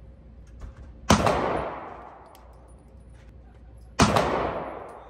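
Two handgun shots about three seconds apart, each a sharp crack followed by a long echo that dies away over about a second in the indoor shooting range.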